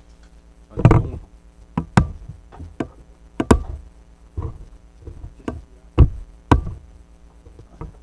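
Hard plastic Playmobil tower pieces knocking and clicking as they are handled and pressed together by hand. The knocks come as an irregular string of sharp strikes, the loudest about a second in and around six seconds in.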